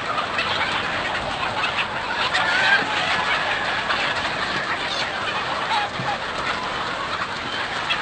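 A large flock of chickens clucking and calling continuously, many birds at once in a dense, steady chatter.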